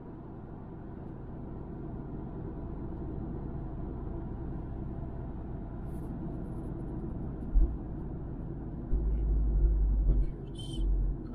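Steady road and engine noise heard inside a moving car at motorway speed, with a few deep rumbles in the last few seconds.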